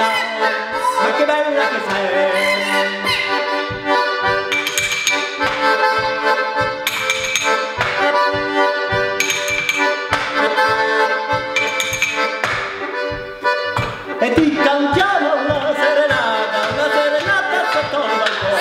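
Small button accordion playing a lively tune, with chord-and-bass buttons pumping a steady, even pulse under the melody.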